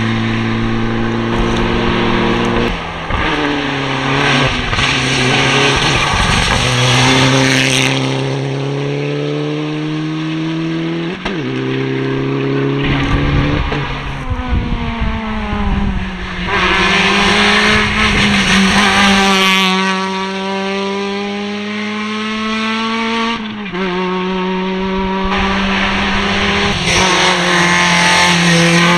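Rally cars driven hard on a tarmac stage as several pass in turn. The engine pitch climbs under full throttle and drops sharply at each gear change.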